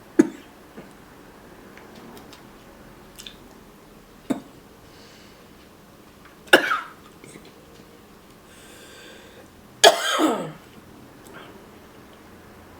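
A woman coughing and clearing her throat, four short times, the last and loudest about ten seconds in.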